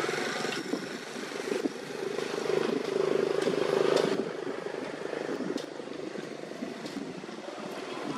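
A motor engine droning in the background, its steady hum swelling to a peak about four seconds in and then easing off.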